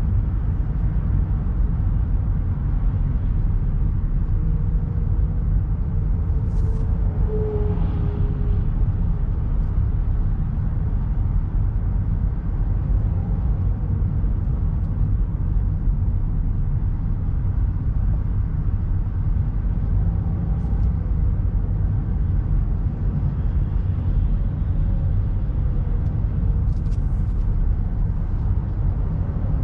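Steady low rumble of road and engine noise heard inside a car's cabin while driving at speed.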